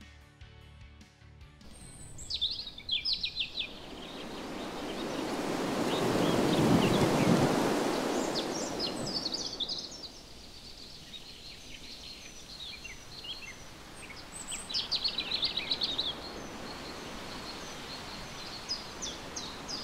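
Outdoor ambience with birds chirping in short bursts. About a third of the way in, a gust of wind swells up and dies away, the loudest thing here. A few seconds of music end right at the start.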